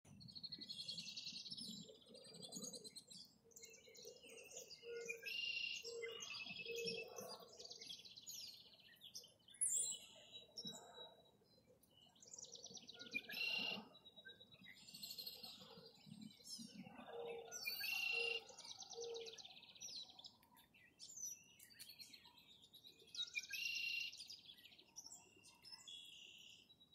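Songbirds singing: trilled song phrases a second or two long, repeated every few seconds, with a lower run of short notes under some of them.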